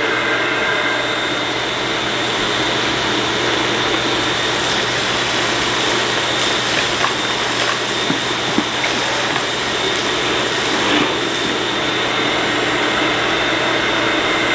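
Ridgid shop vac running steadily, pulling air through a Delmar cyclone dust separator on a bucket: a steady rush of air with a high whine, and a few light ticks through the middle.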